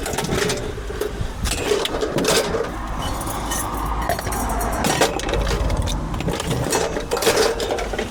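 Scrap metal being handled and shifted, with repeated irregular clinks, knocks and rattles over a low rumble.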